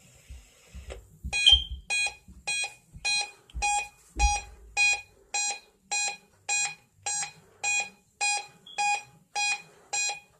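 A weather-radio alert receiver's alarm beeping after decoding a NOAA Weather Radio test alert: a steady run of identical electronic beeps, about one and a half to two a second, starting about a second in, with a few low knocks under the first beeps.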